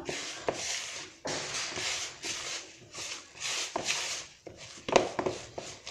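A hand kneading a soft, sticky semolina and coconut dough in a bowl: a run of squishing, rubbing strokes, about one or two a second, with one sharper stroke near the end.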